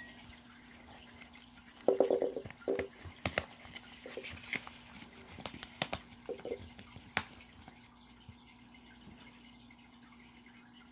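Metal spoon stirring a watery glitter slime mix in a glass bowl: scattered clicks, knocks and scrapes of the spoon against the glass, the loudest about two seconds in, dying away after about seven seconds. A faint steady hum runs underneath.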